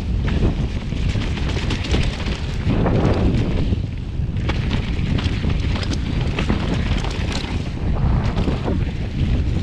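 Wind buffeting the chest-mounted GoPro's microphone as a mountain bike rolls fast down a dirt trail, with steady tyre rumble and frequent small clicks and rattles from the bike. The rush swells briefly about three seconds in.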